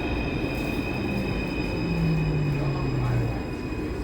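Taipei MRT C341 metro train running, a steady rumble with a high-pitched multi-tone whine. A low hum slides down in pitch between about one and three seconds in.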